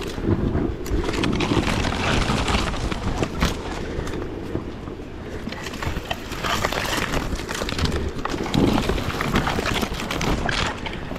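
Enduro motorcycle on the move: rough engine and riding noise mixed with wind buffeting the microphone, with frequent short knocks and rattles.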